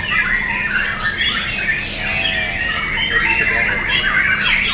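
Many caged white-rumped shamas (murai batu) singing at once in a songbird contest: dense overlapping whistled phrases, trills and chatter with no pause.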